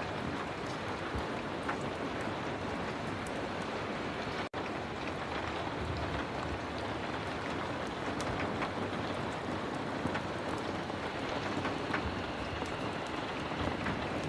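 Heavy rain falling steadily, with scattered sharp ticks through it. The sound drops out for an instant about four and a half seconds in.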